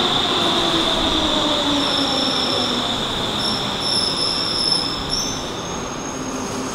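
Stockholm metro train pulling in and slowing along the platform. The electric motor whine falls in pitch over the first few seconds under the rumble of the wheels on the rails, and a steady high squeal fades out near the end.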